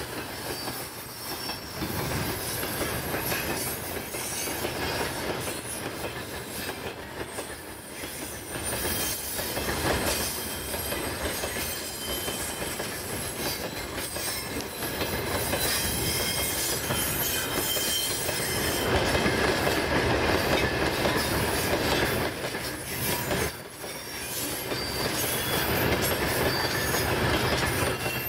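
Freight wagons rolling past, their wheels clattering over the rail joints and squealing. Toward the end the steady engine note of the train's rear pusher, a TE33AC diesel locomotive, comes in as it approaches.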